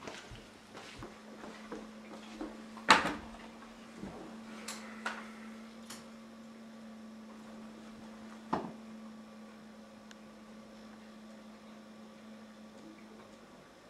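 Scattered knocks and clicks of household handling, with one sharp knock about three seconds in and another near nine seconds, over a faint steady hum that stops near the end.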